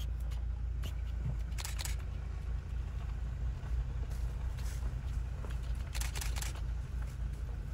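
Car engine running steadily with a low rumble, with a few short clicks about two seconds in and again about six seconds in.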